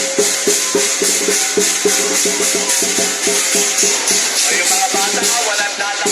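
Lion dance percussion band playing: drum strokes in a fast, steady beat under a continuous clash of cymbals. Voices shout over it from about halfway through.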